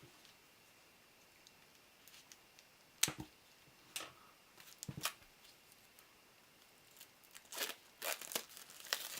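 Cellophane shrink-wrap being picked at and pulled off a boxed deck in short crinkles and rips: a few isolated crackles about three and four seconds in, then a denser run of tearing and crinkling near the end.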